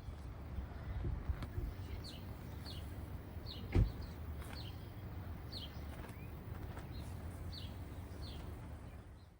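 A bird giving short, high chirps that fall in pitch, about one a second, over a steady low rumble. A single sharp knock about four seconds in is the loudest sound.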